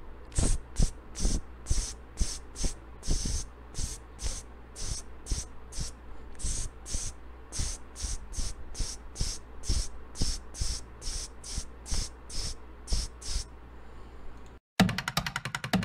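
Aerosol can of spray varnish sprayed in short, quick puffs, about two or three a second, as a clear protective coat goes onto a chrome wire rack. The spraying stops about a second before the end, and music with a steady beat comes in.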